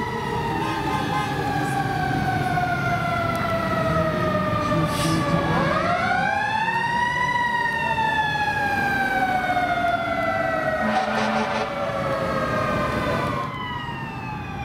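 Fire apparatus sirens wailing in slow sweeps. One wail slides down, then a new one climbs quickly about five seconds in and falls away slowly over the next several seconds. The sound stops abruptly near the end.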